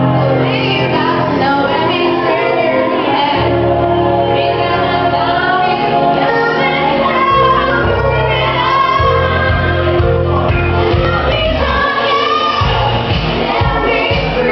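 A woman singing karaoke into a microphone over a loud backing track with a bass line; a steady beat comes in near the end.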